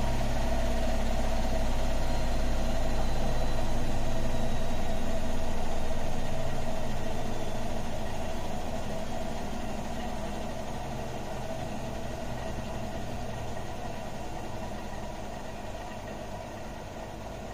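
Siemens front-loading washing machine running during a suds lock, the drum turning through foamy water with a steady mechanical hum and a low rumble under it. The rumble fades and the whole sound dies down gradually over the second half.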